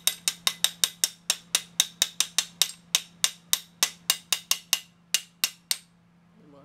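Fast, even metallic clicking, about four or five a second, from hand tools at work on a piston being fitted into the cylinder of a 1979 Harley-Davidson Sportster engine; it stops about six seconds in.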